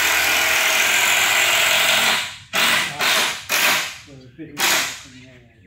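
Handheld power drill running steadily for about two seconds, then four short bursts of the trigger, as when driving screws into timber.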